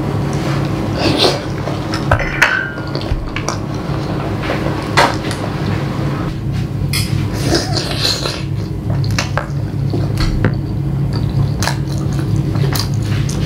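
Close-miked eating sounds: wet chewing and smacking of spicy pork pickle eaten by gloved hand, with many short sharp clicks and light knocks from the plastic container it is held in.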